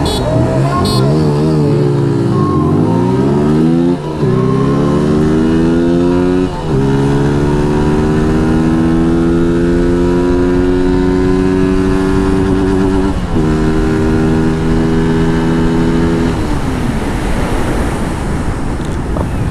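Zontes U single-cylinder motorcycle engine revved and launched hard, accelerating up through the gears. The note climbs and drops back at each of three upshifts. Near the end the throttle is closed and the engine note falls away.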